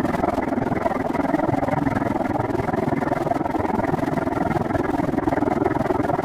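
Steady rush of wind and tyre noise from a bicycle rolling along a paved trail.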